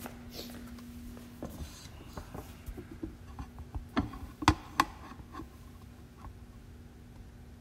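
Handling noise from the recording camera as it is moved and set in place: rubbing and small clicks, then three sharp knocks about four to five seconds in.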